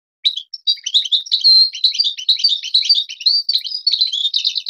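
European goldfinch singing a fast, varied twittering song of high chirps and trills. It starts about a quarter-second in and closes with a quick run of repeated notes.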